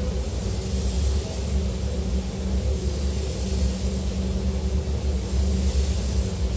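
Steady low rumble of a spray booth's ventilation, with the hiss of a compressed-air spray gun coating a car's bodywork swelling and easing over it.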